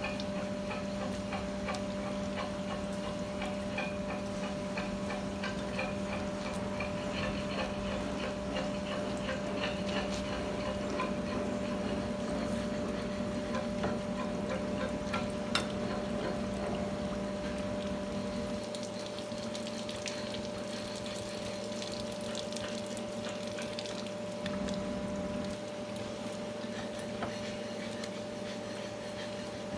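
A hose lance spraying water onto a locomotive radiator core, a steady hiss of water over a constant machine hum. The lower part of the hum drops away about two-thirds of the way through.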